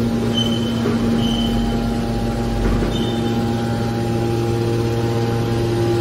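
Hydraulic scrap metal baler's electric motor and hydraulic pump running with a steady hum, with a few short high squeaks.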